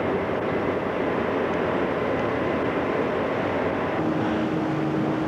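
Steady engine drone with no breaks, with a steady hum joining about four seconds in.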